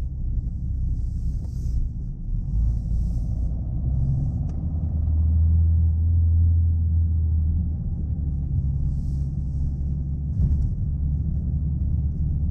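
Chevrolet Aveo driving, its engine droning steadily under a low road rumble. The drone swells louder for a couple of seconds around the middle, then settles back.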